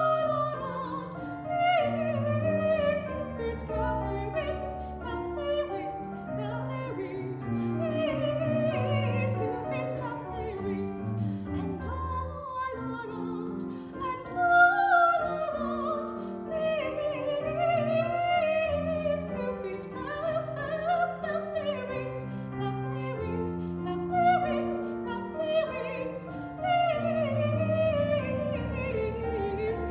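Solo female singer in a trained classical, operatic style, a high voice carrying a long legato melody with vibrato, over a quieter accompaniment of held lower notes.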